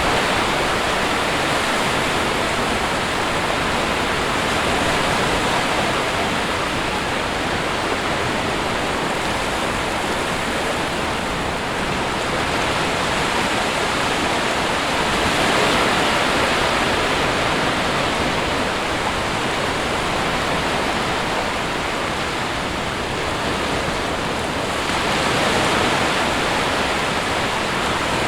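Sea waves breaking and washing on a shore: a continuous rush of surf that swells a little twice, about halfway through and near the end.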